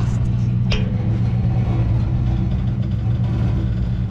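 A motor running steadily, a low even drone. About three-quarters of a second in there is a short sharp squeak.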